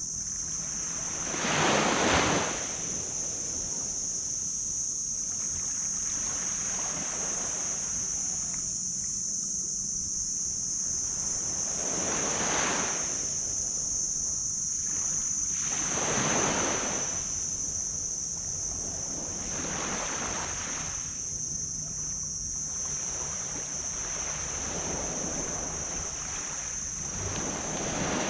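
Small tropical waves breaking on a black sand beach, each one a rushing surge that swells and falls away, about six in all, the loudest about two seconds in. A steady high-pitched drone runs underneath the whole time.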